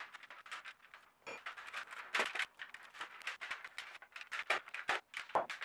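Thin stainless steel heat-treat foil crinkling as hands fold and crimp it into an envelope around a knife blade: a run of irregular crackles.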